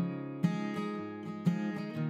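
Steel-string acoustic guitar strummed, a strong accented stroke about once a second with lighter strums between, the chords ringing on.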